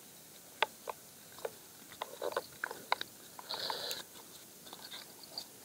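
Irregular sharp clicks, about a dozen spread over the first three seconds, then a brief crunching rustle about three and a half seconds in.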